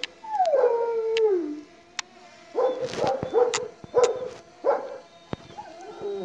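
Kangal shepherd dogs barking at a drone overhead. There is a long, howl-like call falling in pitch near the start, a run of about five short, deep barks in the middle, and another falling call near the end. The voice is hoarse.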